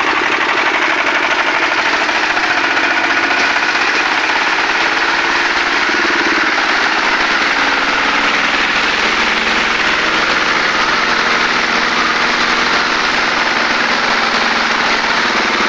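Single-cylinder diesel engine of a công nông farm tractor-cart running steadily as the machine is driven, its engine note shifting slightly about six seconds in.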